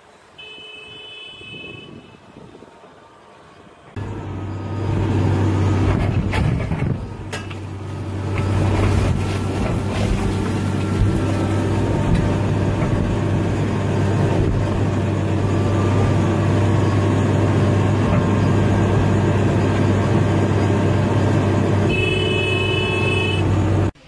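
Heavy diesel engine of an excavator running steadily with a deep, even hum, heard from inside the cab, with a few sharp knocks soon after it comes in.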